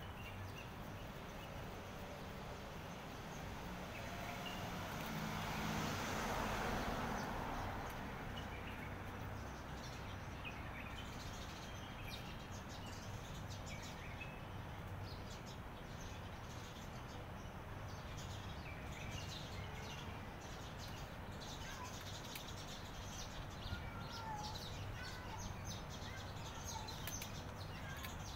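Outdoor background noise with small birds chirping now and then. The background swells, loudest about six seconds in.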